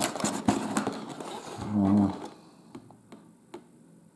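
Cardboard box being handled and turned over on a paper-covered table: rustling with light taps and clicks, thinning to a few faint clicks in the second half.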